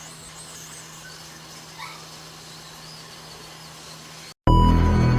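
Faint steady background hum with a low drone and a few faint, high, wavering chirps, then loud electronic intro music cuts in suddenly near the end.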